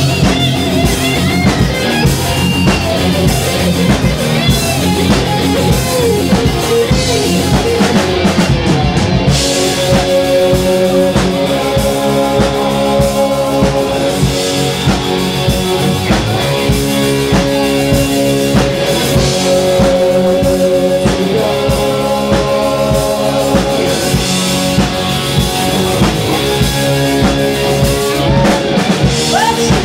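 Live heavy metal band playing loudly: distorted electric guitars, bass and drum kit. About nine seconds in the playing shifts to long held notes.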